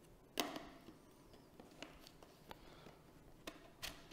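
Faint handling noise of an RC plane's tail boom and tail unit being fitted together by hand: a sharp plastic click about half a second in, then a few lighter clicks and taps.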